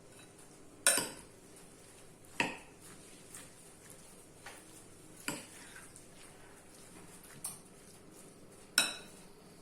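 A utensil knocking and clinking against a bowl while minced-meat filling is stirred, with several irregular sharp knocks, the loudest about a second in and near the end.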